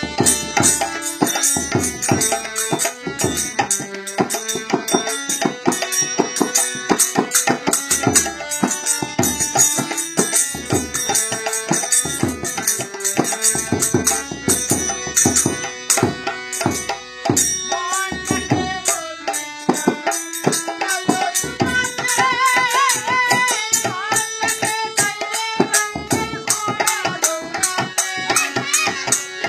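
Bengali folk song played on a harmonium with a two-headed barrel hand drum and small hand cymbals, the drum keeping a fast, busy beat under the harmonium's held chords. A voice sings over the instruments in the latter part.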